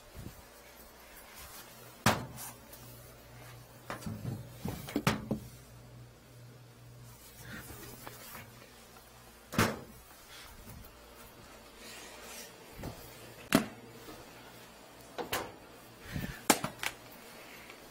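Irregular knocks and clatters of stainless-steel kitchen cabinet doors and panels being opened, shifted and set down, several sharp ones spread through, over a faint steady low hum.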